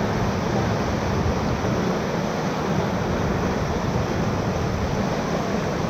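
Whitewater rushing steadily and loudly around a raft in a rapid.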